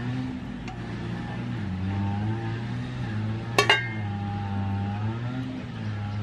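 An engine runs steadily nearby, its pitch drifting slightly up and down. About halfway through, a kitchen knife is set down on a stainless steel lid with one sharp, ringing metallic clink.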